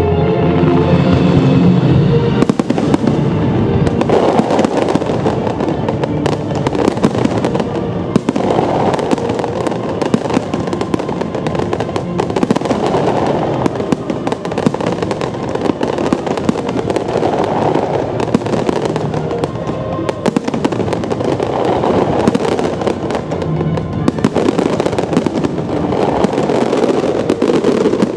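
Aerial fireworks display: a continuous dense barrage of bangs and crackling shell bursts, with no let-up.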